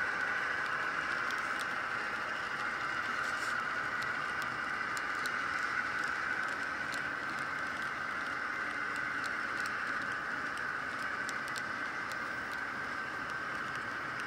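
The mostly brass cars of an S scale model train rolling past on the track: a steady whir with scattered light clicks of wheels on rail.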